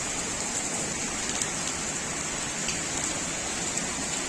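Heavy downpour of rain falling on pavement and parked cars: a steady hiss with a few faint drop ticks.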